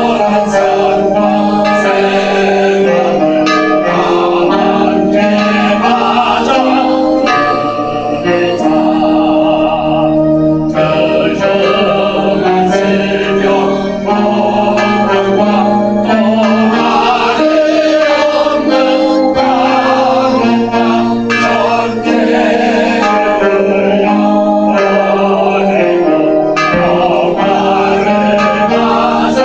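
Church hymn music: sustained chords moving slowly from one to the next, with singing voices.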